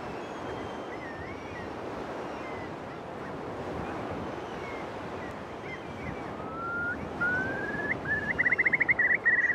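Far Eastern curlews calling over small waves lapping at the shore: scattered soft whistles at first, then from about seven seconds in rising calls that build into a loud, rapid bubbling trill near the end.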